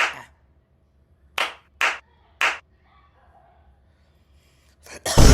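Four sharp hand claps, one at the start and three more about half a second apart between one and two and a half seconds in. Right at the end a sudden, very loud, distorted blast cuts in.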